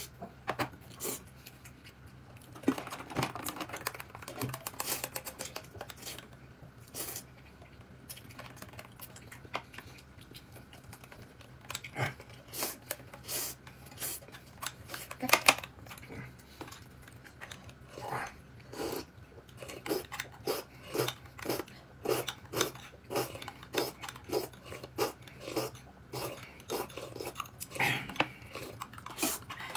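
Someone eating a meal: chewing and the small clicks of utensils against bowls and dishes. Through the second half the chewing settles into a steady rhythm of about one and a half chews a second.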